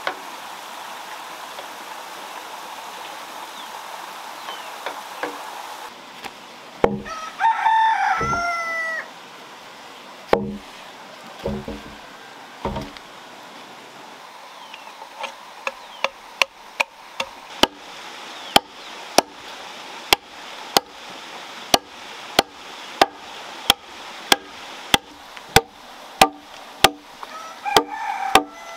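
A rooster crows once, a few dull knocks sound around it, and a short call comes near the end. From about halfway through, an axe chops steadily into a log, with sharp strikes about one and a half a second as it cuts a notch.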